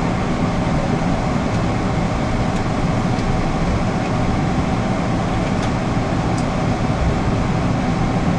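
Steady cabin noise inside a Boeing 777-300ER taxiing after landing: a constant low rumble with airflow hiss and a faint steady hum.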